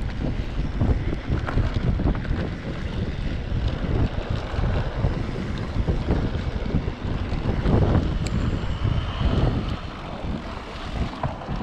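Wind buffeting the microphone over the rumble and rattle of a mountain bike riding a dirt trail, with many small knocks from the bumps.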